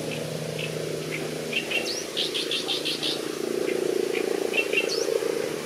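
Great reed warbler singing: short scattered notes, a fast run of about six repeated notes about two seconds in, and quick upward-sweeping notes, over a steady low hum.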